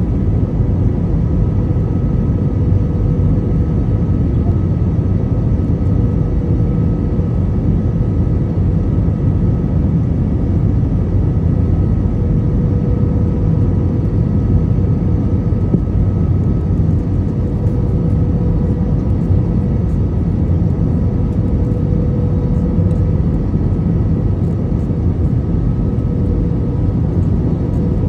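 Airbus A320 cabin noise at a window seat over the wing on approach: a steady, low rush of engine and airflow noise with a faint constant hum.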